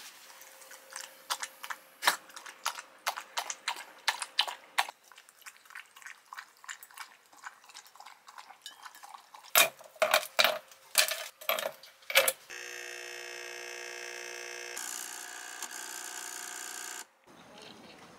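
A dog lapping water from a bowl with quick small clicks, then ice cubes clattering loudly into a metal cup, then a capsule espresso machine's pump buzzing steadily for about four seconds, its tone shifting partway through before it stops.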